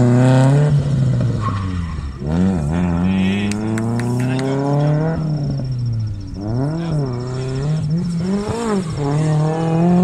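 Car engine driven hard round a gymkhana course, revving up and down. Its pitch climbs steadily for about three seconds, then drops sharply, followed by several quicker rises and falls as the driver accelerates, shifts and lifts between turns.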